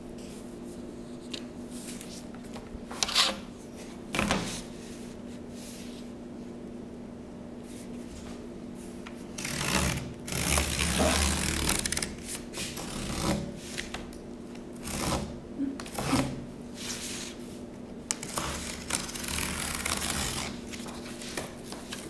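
Intermittent cutting sounds: short bursts of scraping and clicking, busiest in the second half, over a faint steady hum.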